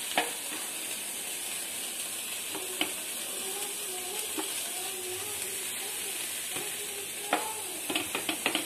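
Steady frying sizzle of bread slices toasting in ghee on a hot tawa, with a few light clicks and taps as slices are set down on the pan, several in quick succession near the end.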